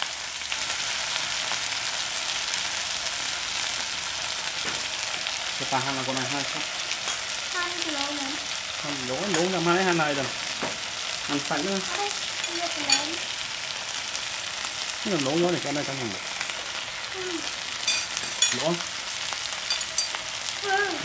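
Beef slices, potato slices and green beans sizzling on a non-stick grill pan: a steady frying hiss, with a few sharp clicks in the second half.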